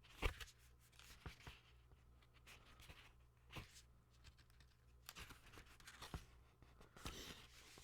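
Faint rustling and soft clicks of paper comic books being handled and their pages turned, a few scattered handling noises over a low room hum.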